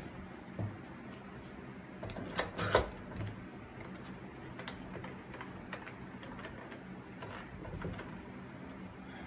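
Cordless drill driving a screw through a pine crossbar into a metal rod, with clicks and knocks of the wood and plastic tub being handled; the loudest knocks come about two and a half seconds in.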